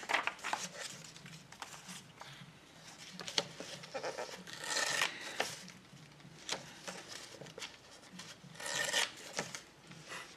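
Sheets of collage paper being handled and rustled in several short bursts, with a few light taps.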